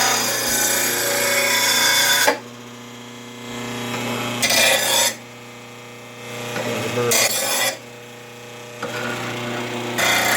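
RBG712 blade sharpener running with a steady hum while a steel mower blade is drawn across its grinding wheel in passes. The passes give a harsh grinding noise: one long one for the first two seconds, two short ones in the middle, and another starting near the end. Between passes the motor runs on alone, more quietly.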